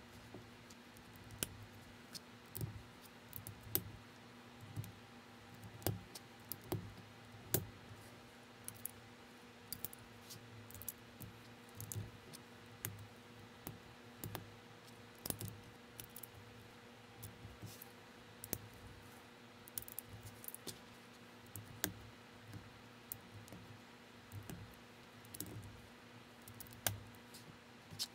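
Plastic building bricks being handled and pressed together by hand: irregular sharp clicks and snaps, a few a second, over a faint steady hum.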